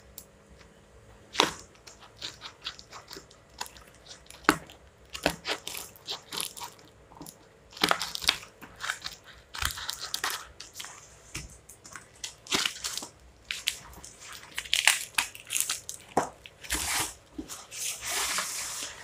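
Hands unsealing a cardboard shipping tube: tape and the plastic end cap picked at and worked loose, making scattered scratching, crinkling and clicks. Near the end a longer scraping as the rod in its bag slides out of the tube.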